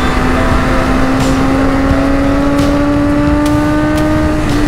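Motorcycle engine running under way with a steady note that slowly climbs in pitch as it gains revs, over heavy wind rush.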